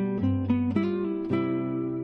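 Background music played on acoustic guitar, plucked and strummed chords changing every half second or so.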